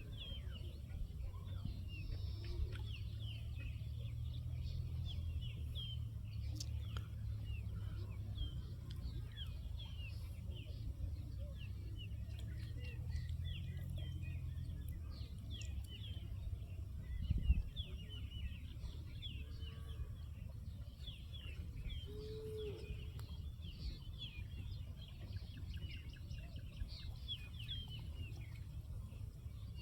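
Birds chirping over and over, many short quick calls, over a steady low rumble; a single thump about 17 seconds in.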